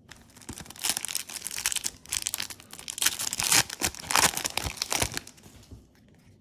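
Foil booster pack wrapper of Yu-Gi-Oh trading cards being torn open and crinkled by hand, a dense crackling rustle lasting about five seconds before it stops.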